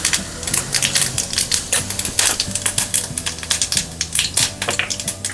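Mustard and cumin seeds crackling and popping in hot oil in a steel pan as a tempering, a quick irregular run of sharp pops.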